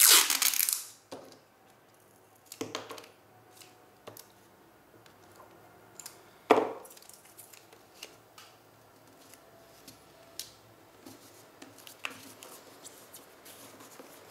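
Stiff paper being folded and pressed flat by hand: a loud rustle of about a second at the start, two shorter crackles about 3 and 6.5 seconds in, and scattered light ticks and rubs in between.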